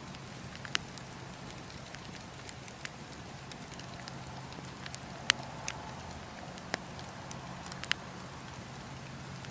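Bonfire crackling: scattered sharp pops, the loudest about five seconds in, over a steady low hiss.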